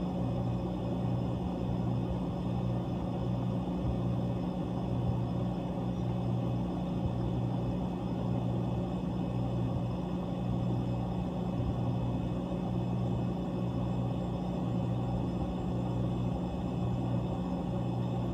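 Whirlpool ice machine's refrigeration compressor running with a steady low hum.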